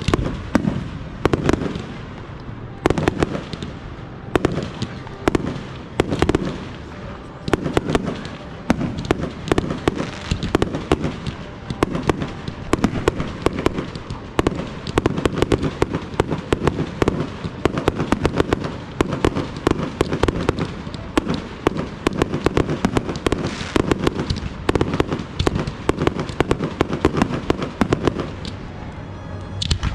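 Fireworks going off in a dense, unbroken barrage: many sharp booms and cracks a second, one on top of the next.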